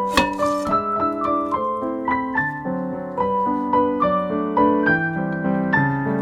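Background piano music: a light melody of short notes with a few sharp clicks among them.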